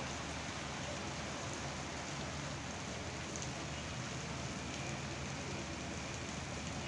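Heavy rain falling steadily, a constant hiss of rain on roofs and the flooded street.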